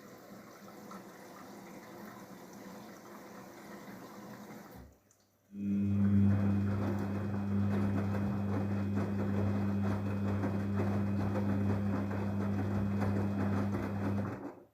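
Daewoo DWD-FT1013 washing machine in its rinse cycle: quiet water sloshing and trickling, then after a brief pause about five seconds in, a loud steady electric hum starts together with rushing water, from the machine's pump or water valve. The hum and the water cut off suddenly right at the end.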